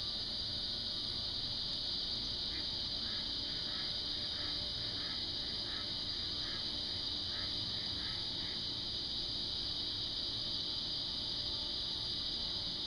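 Steady, high-pitched chorus of insects. For several seconds in the middle, a run of short, faint chirps sounds under it.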